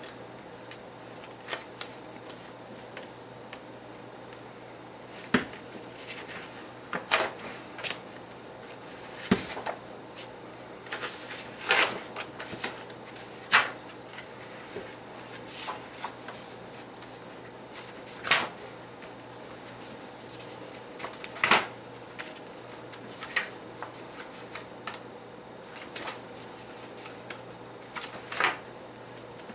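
Sheets of craft paper being leafed through and handled, with irregular rustles and the odd sharper slap or click.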